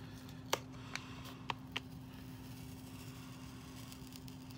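Fingernail picking and peeling at a price sticker on the back of a cardboard doll box: four small sharp clicks in the first two seconds, then only a steady low hum.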